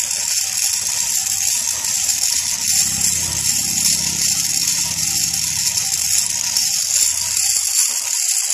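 Glass marbles tumbling and clattering inside a rotating glass jar, an improvised ball mill turned by a 12 V car power-window motor: a continuous dense rattle. The motor's low hum runs underneath and stops near the end.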